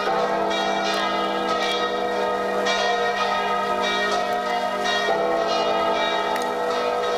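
Bells ringing: many tones overlapping and held, with fresh strikes every second or two over a steady low note.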